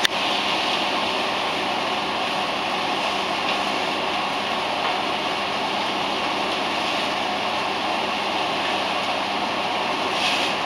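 Steady sizzling of marinated tuna steaks frying in a hot pan.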